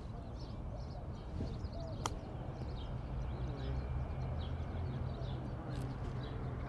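A sand wedge striking a golf ball on a chip shot: a single sharp click about two seconds in. Birds chirp throughout over a steady low rumble.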